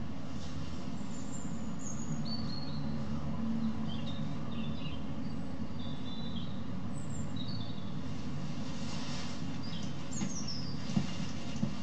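Small birds chirping every second or so over a steady low background rumble, with a couple of small knocks near the end.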